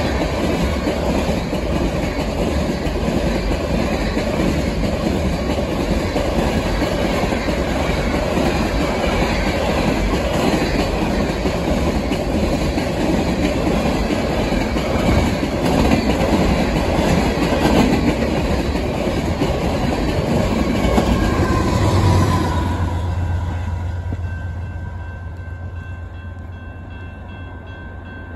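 Empty ore hopper cars of a long freight train rolling past at speed, wheels clattering over the rail joints, with wind on the microphone. About three-quarters of the way through, the rolling noise drops away, leaving a steady low hum and faint high ringing tones.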